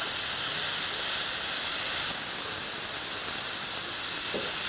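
Compressed air hissing steadily out of a small high-pressure air cylinder as its top valve is held open, releasing the air that the compressor has just pumped into it.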